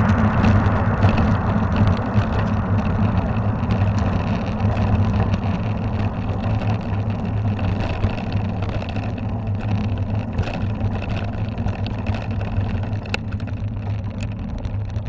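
Wind rumbling over the microphone of a ride camera on a moving mountain bike, with small clicks and rattles from the bike over the trail.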